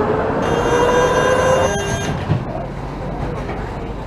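Tram running on rails, its electric traction motors whining and rising in pitch as it picks up speed, with a high-pitched squeal over it for about a second and a half. The whine and squeal cut off about two seconds in, leaving the rumble of the wheels with scattered clicks.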